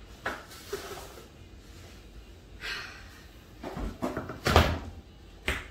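Knocks, bumps and rustles from handling long wooden trim boards and moving about on the kitchen counter. The loudest is a heavy thump about four and a half seconds in, with another knock near the end.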